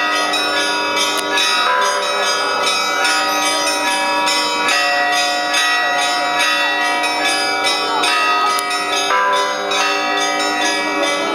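Church bells ringing continuously, several bells of different pitches struck again and again so that their tones ring on and overlap.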